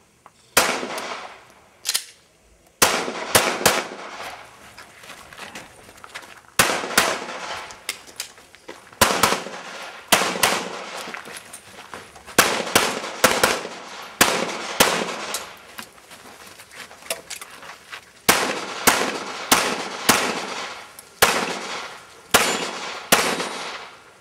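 Pistol shots fired through a practical-shooting course of fire. The sharp reports each have a short echo and come mostly in quick pairs or threes, with pauses of one to three seconds between groups.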